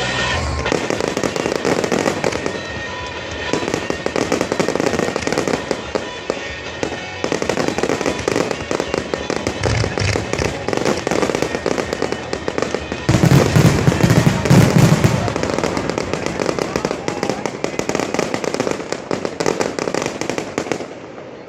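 Aerial fireworks going off in quick succession: dense crackling and popping, with a heavier run of deep booms about two-thirds of the way through.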